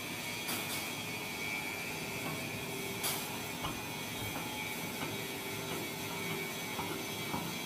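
Hydraulic plate-flattening press running with a steady mechanical hum and a steady high whine as its ram pushes down on a thick chromium carbide overlay plate. A few light clicks, the sharpest about three seconds in.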